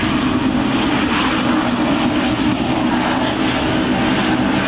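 Boeing 777's GE90 jet engines during the landing rollout, spoilers raised: loud, steady jet noise with no change in pitch.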